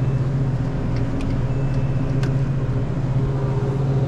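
Steady low hum of refrigerated drink coolers, with a few light clicks of aluminium cans being handled on the cooler shelves about one and two seconds in.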